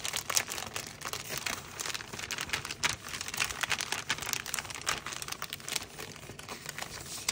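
Packaging crinkling and rustling as it is handled and unwrapped, a dense run of irregular crackles that stops abruptly at the end.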